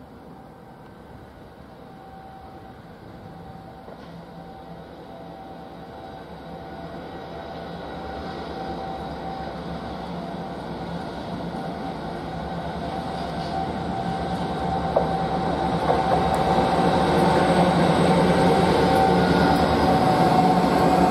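Diesel freight train approaching, its engine hum growing steadily louder as it draws nearer.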